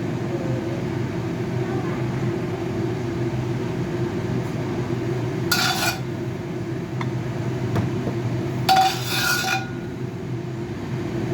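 Kitchen dishes and utensils clinking with a short ringing tone, once about five and a half seconds in and again, louder, around nine seconds, over a steady low hum.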